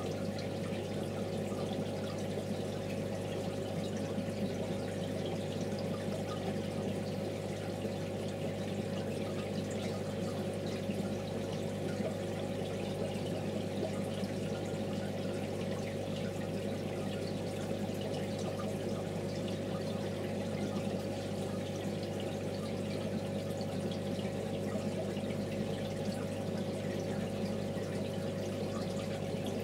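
Aquarium water running steadily: a constant trickle over an unchanging low hum.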